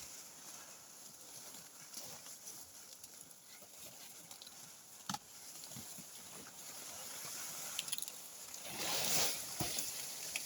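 Farm animals moving and rustling, with a sharp click about five seconds in and a louder rustling swell near the end, over a steady high hiss.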